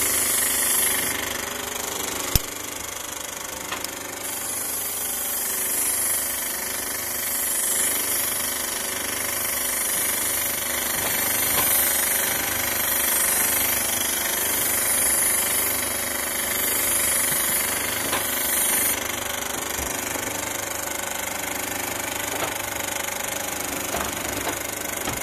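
Feli Model 1000 electric airless paint sprayer running steadily, its pump working to feed waterproofing oil under pressure to the spray gun.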